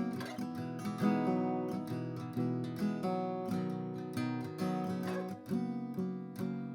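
Atkin L36 small-bodied acoustic guitar, Sitka spruce top with mahogany back and sides, strummed in chords with a thick, rounded pick. The chords are struck about once or twice a second and ring on between strokes.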